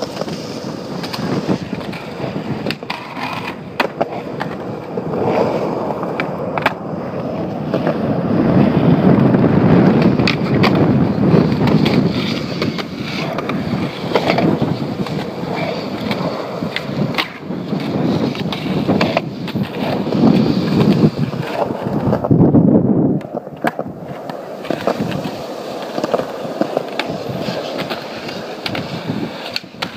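Skateboard wheels rolling, swelling and fading as the skater passes, with sharp clacks of the board popping and landing scattered throughout.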